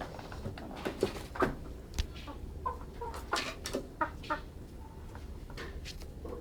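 Chickens clucking, short clucks scattered through over a steady low hum.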